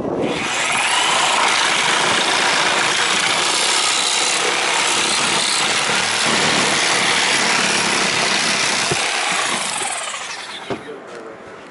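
Reciprocating saw running and cutting steadily, dying away about ten seconds in.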